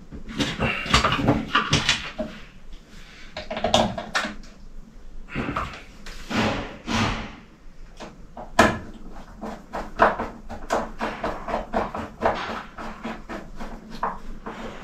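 Irregular knocks, clicks and scraping from hand work on the fittings of a hot water cylinder, with a sharper knock a little past the middle.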